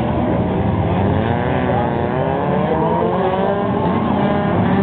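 Several race car engines running at once on a short oval, their pitches rising and falling and overlapping as the cars accelerate and lift.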